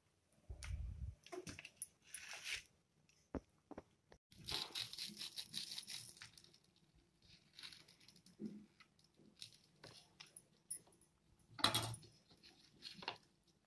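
A knife sawing through a golden-brown toasted bread sandwich: short, dry crunching scrapes of the crisp crust, the longest run about four to six seconds in. A dull thump comes about half a second in, and a louder crunch near the end.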